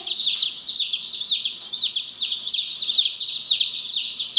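A brood of Light Brahma chicks peeping continuously: many high, overlapping peeps, each falling in pitch.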